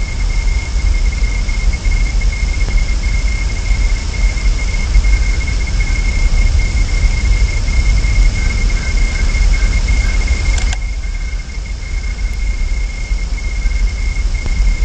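Wind rumbling on an outdoor nest-camera microphone, over a steady high-pitched electrical whine and hiss. The hiss drops suddenly about eleven seconds in.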